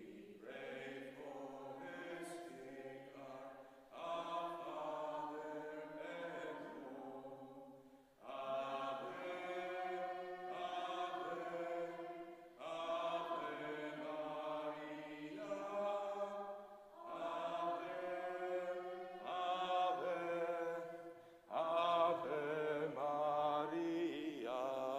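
Congregation singing a hymn to Mary, in sung phrases of about four seconds with short breaks between them.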